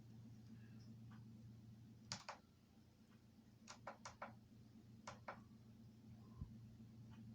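Near silence over a steady low electrical hum, broken by soft clicks in small clusters about two, four and five seconds in, and a single low thump near the end.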